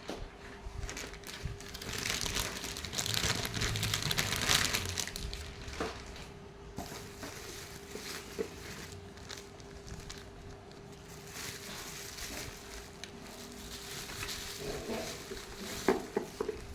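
Packaging crinkling and rustling as it is handled, loudest a couple of seconds in, with scattered clicks and knocks and a few sharper knocks near the end.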